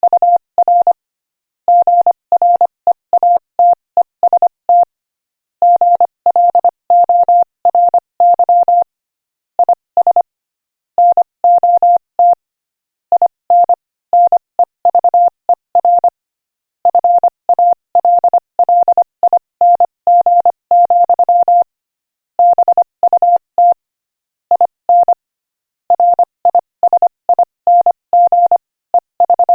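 Morse code at 25 words per minute: a single steady beep keyed rapidly on and off in short and long elements. The letters come in quick groups, with slightly longer pauses between words.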